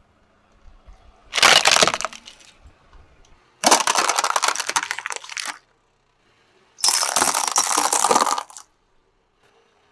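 Car tyre rolling over and crushing plastic toys, among them a toy drum: three separate bursts of cracking and crunching plastic, each a second or two long.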